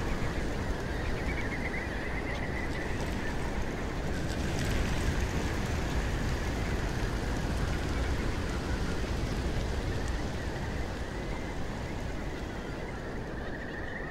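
A huge flock of whimbrels calling together, many rippling whistled trills overlapping, over a steady low rushing noise.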